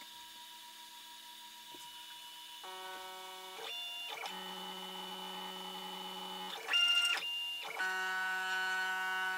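Stepper motors of a WorkBee CNC machine moving the router through a touch-probe routine: a series of steady whining tones starting about three seconds in, each held for half a second to two seconds and changing pitch as the machine moves at different speeds, loudest briefly near the seven-second mark.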